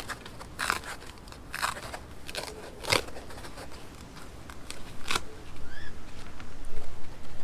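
Packing foam being cut into pieces by hand: about five separate short cuts, then denser rustling and handling noise near the end.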